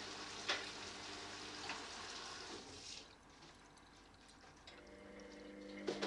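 Front-loading washing machine running a wash: water sloshing in the turning drum over a steady motor hum, with a couple of sharp taps in the first half. About halfway through, the water noise drops away, leaving a quieter hum that slowly grows again.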